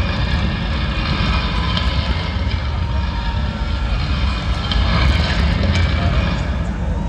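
Loud, steady, deep rumble with a dense hiss and scattered small clicks: a crumbling-stone sound effect played over large outdoor loudspeakers as the projected bricks of the monument break apart.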